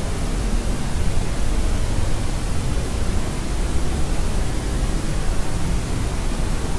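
Steady, unchanging white noise, heavier in the low end like pink noise, used as a sleep sound for babies.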